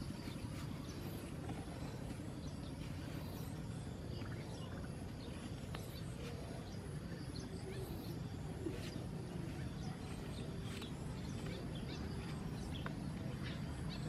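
Outdoor ambience: a steady low rumble with scattered short, high chirps and ticks, likely from small birds.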